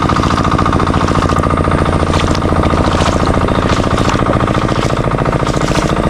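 A small engine running steadily with a rapid, even pulsing.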